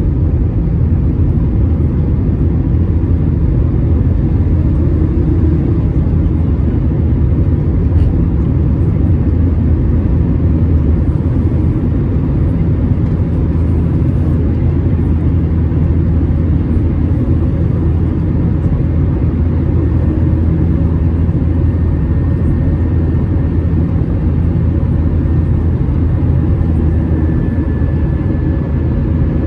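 Airbus A320 cabin noise: the steady low rumble of the jet engines and airflow heard from inside the cabin, with faint steady tones over it.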